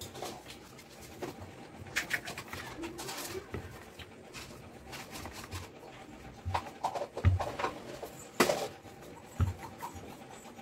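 Wooden rolling pin rolling out a round of wheat-flour dough on a floured wooden board, with scattered low knocks of the pin against the board and a few sharp clicks, more often in the second half.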